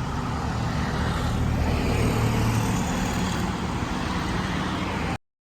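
Road traffic noise: a vehicle engine rumbling steadily, a little louder about two seconds in, then cutting off suddenly near the end.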